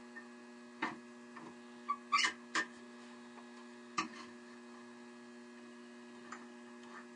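Steady electrical hum with a few light clicks and taps as a half-inch skew chisel is positioned against a bench grinder's tool rest and wheel: one tap about a second in, a short cluster around two seconds, and another tap at four seconds.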